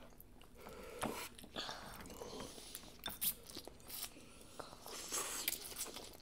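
Close-miked eating sounds: chewing and slurping of instant noodles, with small scattered clicks of chopsticks and mouth noises.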